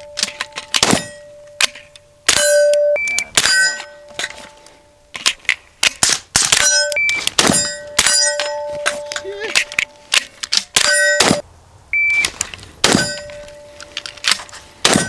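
A string of gunshots at an uneven pace, many answered by the ringing clang of steel targets being hit, each ring holding a clear metallic tone that fades over about a second.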